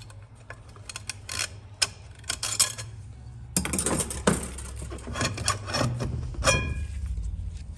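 Metal parts of an 8L90 automatic transmission clinking and clanking as they are handled and set down: a string of sharp knocks. About six and a half seconds in, one part rings briefly. A low steady hum runs underneath.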